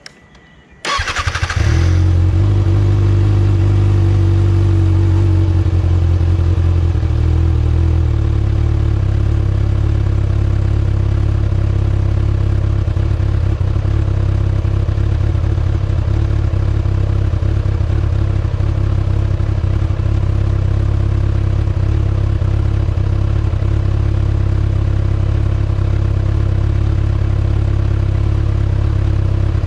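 2019 Kawasaki ZX-6R's 636 cc inline-four on its stock exhaust starting about a second in with a brief starter whine, then idling steadily. The idle note eases down a little about seven seconds in.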